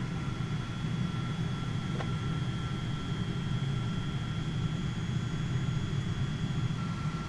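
Steady cabin noise inside a Boeing 777-200 airliner: an even low rumble of air and machinery with two thin steady whines over it, and a faint click about two seconds in.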